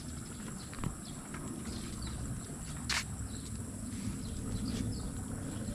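Outdoor ambience: faint scattered chirps over a steady low rumble, with one sharp click about three seconds in.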